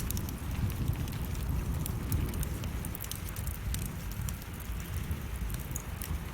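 Wood fire crackling in a fireplace, with many small irregular pops, over steady falling rain.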